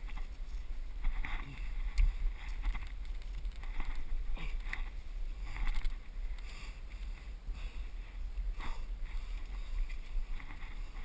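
Steady low rumble of wind on the microphone, with repeated short rustling and brushing of branches and dragon fruit cactus stems as someone climbs through the tree.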